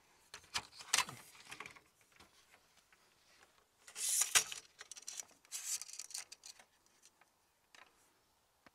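A camper-van awning's metal support leg being unclipped and pulled down: handling clicks near the start and about a second in, then two short scraping rushes as the leg slides out, about four seconds in and again just before six seconds.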